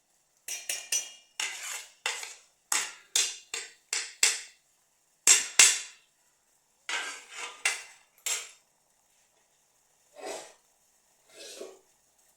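Metal cookware and utensils clattering and clinking: a run of sharp knocks and clinks, some in quick pairs, the loudest pair about five seconds in, then two duller knocks near the end.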